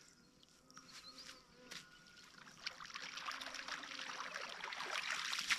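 A yabby net hauled through shallow, muddy dam water: water swishing and trickling through the mesh, growing louder over the last few seconds as the net comes in to the bank, with a single light click about two seconds in.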